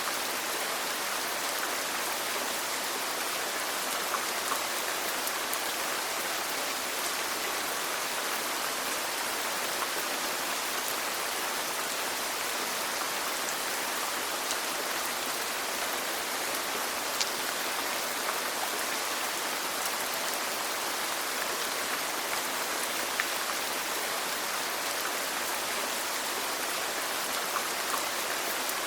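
Steady rain falling on a surface, a constant hiss with scattered individual drops ticking.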